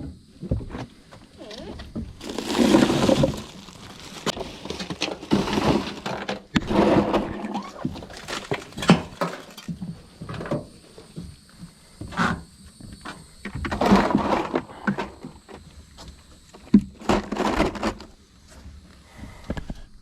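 Field dressing a freshly killed wild hog by knife: irregular bursts of cutting, tearing and handling noise from the carcass, with sharp clicks and cracks between them.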